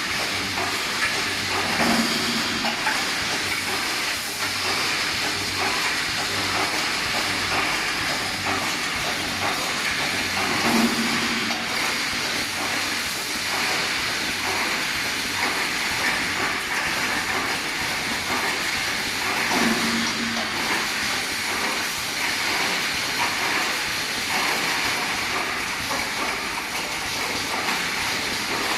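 Automatic steel mesh welding machine running: steady hissing and clattering machine noise, with a low hum that comes back about every nine seconds.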